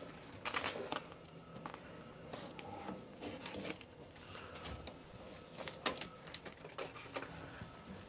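Faint scattered clicks, taps and short rustles of vinyl wrap being handled and trimmed with a blade.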